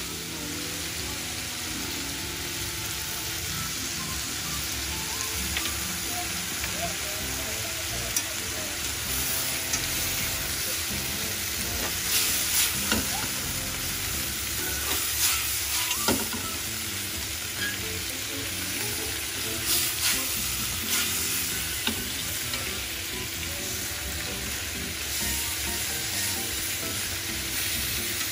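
Squid rings and sliced onions sizzling steadily in a frying pan, stirred with a wooden spatula that now and then scrapes and knocks against the pan.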